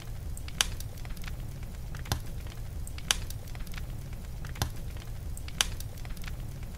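Small fire of sticks burning under a pot, crackling with sharp pops about once a second over a low steady rumble.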